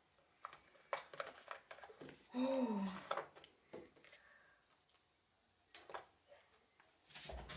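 Soft handling sounds of a smartphone box and its packaging being opened: a few light taps and rustles. About two and a half seconds in comes a short wordless vocal sound that dips and rises in pitch, the loudest sound here. A soft knock follows near the end.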